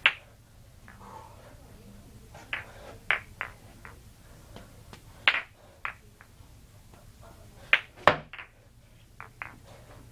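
Juggling balls slapping into the palms as they are caught and thrown. It is an irregular run of sharp smacks, often in quick pairs or triplets, and the loudest comes about eight seconds in.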